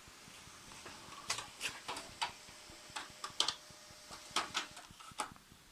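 HP LaserJet M104a laser printer running with an irregular series of sharp clicks and knocks, about ten over a few seconds, over a faint motor tone. This is the abnormal 'ge-leng ge-leng' rattle reported as the printer's fault.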